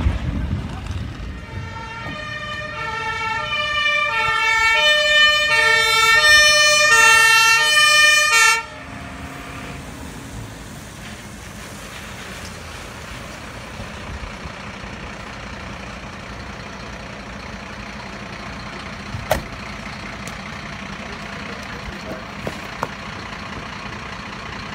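German fire engine's two-tone siren (Martinshorn), alternating between a high and a low tone and getting louder for about six seconds before it is switched off abruptly. A steady low rumble remains afterwards.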